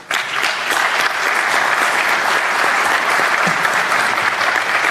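An audience of a seated hall applauding, breaking out all at once and holding a steady, dense clapping.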